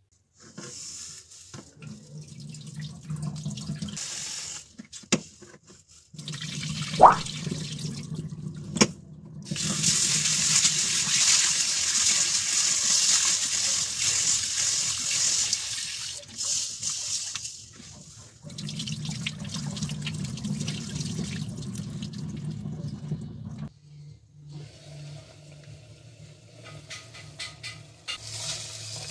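A kitchen tap runs into a stainless steel bowl while hands rub and swish mung beans to wash them. The running water comes and goes in stretches and is loudest in the middle, with a few sharp knocks against the bowl.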